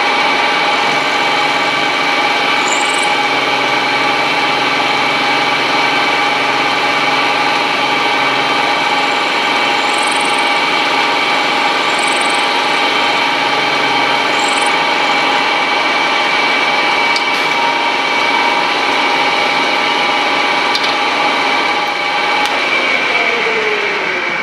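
Vertical milling machine running a 3/16-inch end mill through a small metal part to mill a slot: a steady whine at several fixed pitches over a cutting hiss. Near the end the spindle is switched off and winds down, its pitch falling.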